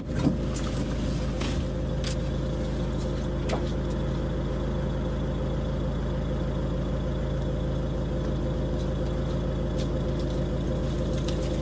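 Car engine idling steadily, an even hum, with a few faint knocks in the first few seconds.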